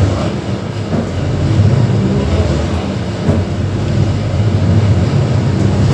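Mercedes-Benz OF-1721 BlueTec 5 bus's four-cylinder turbodiesel engine running with a steady low rumble.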